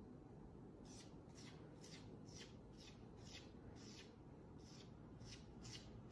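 Faint, soft scratching strokes repeating about twice a second, over near silence.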